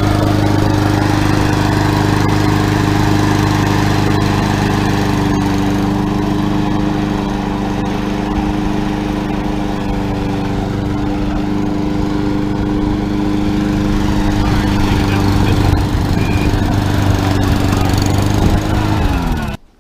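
Riding lawn mower engine running steadily. Just before the end its pitch drops as it slows, then the sound cuts off abruptly.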